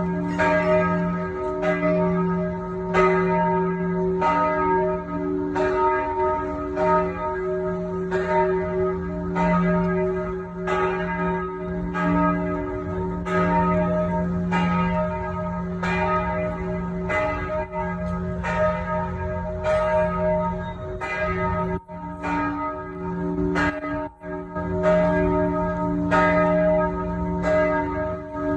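Several church bells ringing together, a fresh strike about every second, their different tones overlapping and sounding on continuously.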